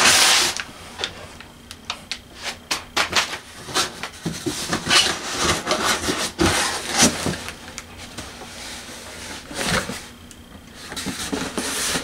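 Corrugated cardboard box being opened by hand: flaps scraping and rubbing, with scattered knocks and crinkles. There is a loud rasp right at the start.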